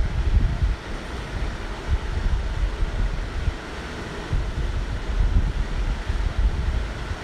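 Raw potato being grated on a steel box grater standing on a steel plate: repeated rubbing strokes with low, uneven rumbling.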